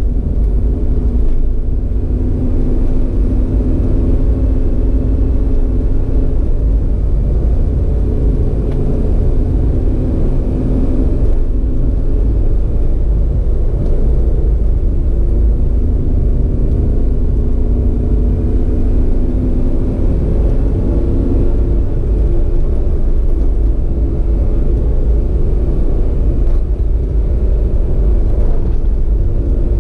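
A vehicle's engine running while driving along a road, its pitch drifting slowly up and down with speed, over a constant low rumble of wind and road noise.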